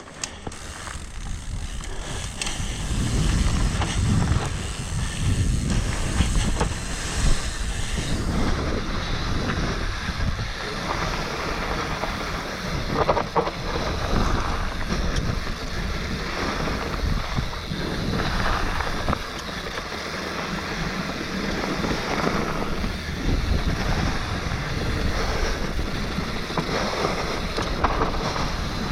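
Wind rushing over a GoPro action camera's microphone, with the rumble and rattle of a downhill mountain bike riding fast over a dirt trail; the noise builds about two seconds in as speed picks up.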